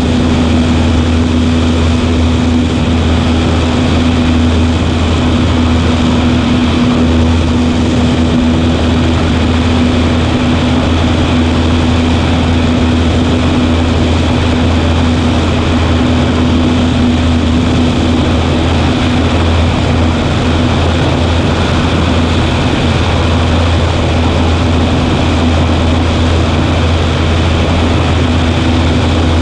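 Cessna 140A's piston engine and propeller droning steadily, heard from inside the cabin, with one strong steady tone and no change in pitch.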